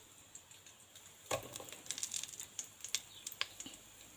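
Cumin seeds and green chillies crackling in hot oil in a kadai: irregular small pops and clicks that begin about a second in.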